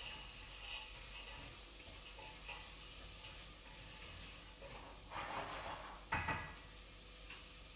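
Faint room sound with a few small clicks, a brief rustle about five seconds in, and a sharp knock with a low thud just after six seconds.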